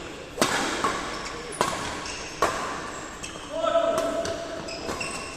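Badminton rackets striking a shuttlecock in a rally: sharp hits roughly once a second, each with a short echo, and a brief voice or call in the middle.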